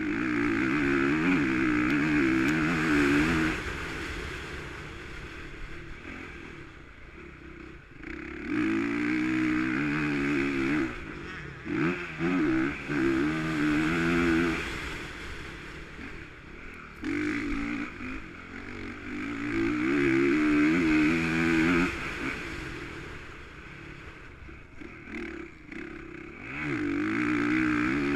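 Motocross bike engine on track, heard from the bike: the rider opens the throttle hard in repeated bursts, the pitch climbing through each, and shuts off between them, about six times, as on a dirt track's straights and corners.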